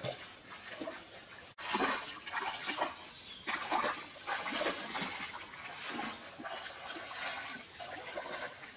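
Shallow stream water splashing as a woven basket is swung through it and throws water out, in a string of irregular loud splashes that start about a second and a half in.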